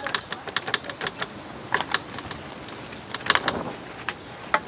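Metal spoon clinking against a stainless steel pot and knocking on lobster shells as batter is scooped and spooned over the tails: a string of irregular light clicks, bunched in small clusters.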